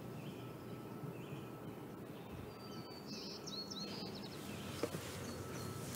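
Low outdoor background noise with small birds chirping, a cluster of short high calls and trills about three to four seconds in.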